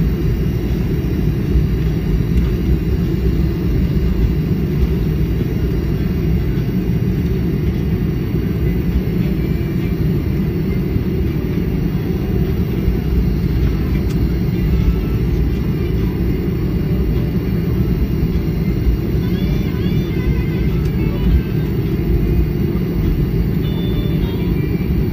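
Airliner cabin noise while taxiing: a steady low rumble from the jet engines and the aircraft rolling, heard from inside the cabin.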